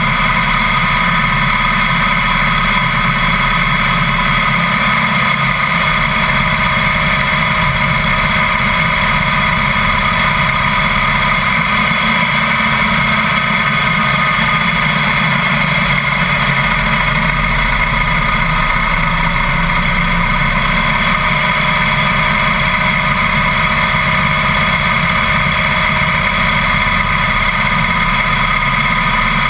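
Harley-Davidson Heritage Softail's V-twin engine running at a steady cruise, mixed with wind and road noise from riding. The sound stays even throughout, with no gear changes or revving.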